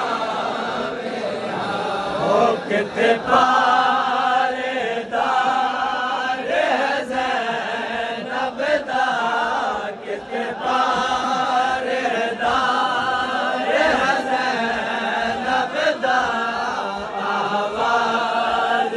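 Men chanting a matmi noha, a Shia Muharram mourning lament, in repeated sung phrases. Short sharp slaps cut across the chanting now and then: hands striking chests in matam.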